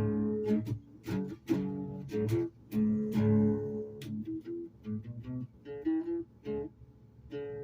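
Music played on a plucked string instrument: a run of strummed chords, each struck and left to ring, coming quickly at first and more sparsely and softly in the second half.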